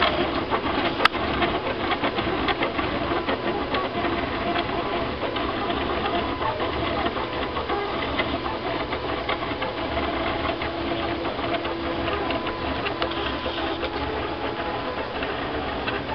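TrinityLabs Aluminatus TrinityOne 3D printer's stepper motors buzzing and whirring as it prints a lattice part, the pitch jumping constantly with the many short moves. A sharp click comes about a second in.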